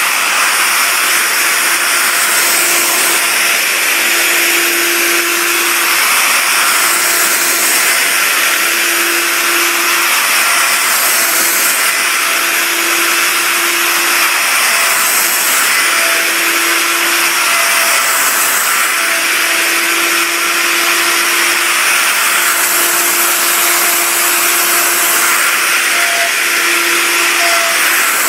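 Electric plunge router running and cutting along a plywood edge: a loud, steady high whine and rush of cutting, with a lower hum that comes and goes every couple of seconds.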